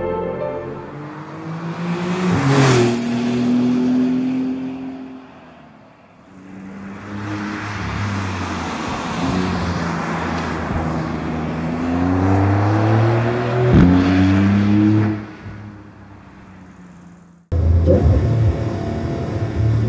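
Porsche 911 Carrera GTS (992) twin-turbocharged flat-six engine accelerating hard, its note climbing with the revs and dropping sharply at gear changes or as the car sweeps past. It fades about fifteen seconds in, then cuts suddenly to another loud stretch of the engine running.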